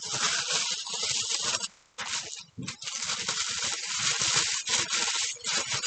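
White tissue paper rustling and crinkling as it is handled and unwrapped, an uneven crackly rustle that stops briefly about two seconds in.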